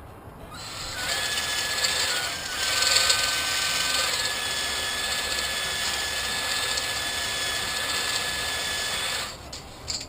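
Electric drill running steadily for about eight seconds, spinning an abrasive tool against a cylinder wall of a Pontiac 455 V8 block; it starts just after the beginning and cuts off near the end.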